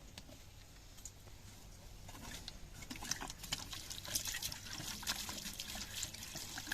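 Water trickling and splashing in small irregular spatters, faint at first and growing busier and louder about two seconds in.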